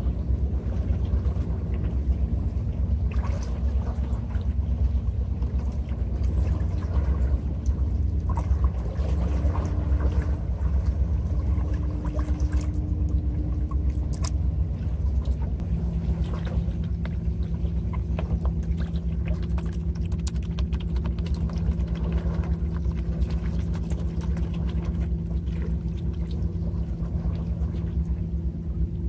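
Steady low rumble of a boat engine on the water, its hum shifting to a different pitch about halfway through. Light clicks and knocks of plastic trays being handled come through now and then.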